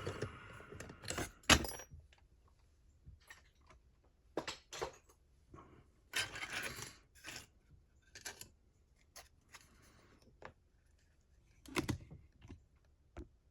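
Scattered small metallic clicks, taps and rattles of a Mottura CP6 lock and lockpicking tools being handled, with a sharper click about one and a half seconds in and a short scraping rattle around six seconds.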